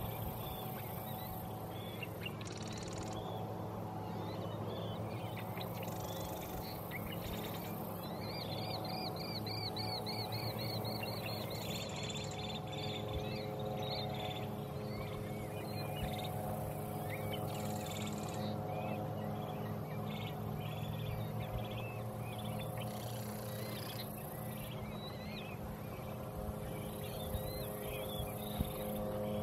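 Wild birds chirping and calling at a marshy pond edge, many short calls throughout, with a fast repeated trill for a few seconds about eight seconds in. A steady low hum sits underneath.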